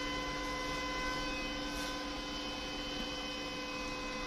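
A steady machine hum with several constant high tones over it, unchanging throughout.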